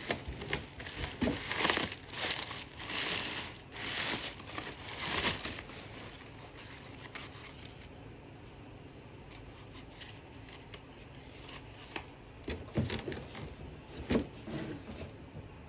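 Packing material crinkling and rustling as it is handled and pulled away in an unboxing, busiest in the first half, with a few light knocks near the end.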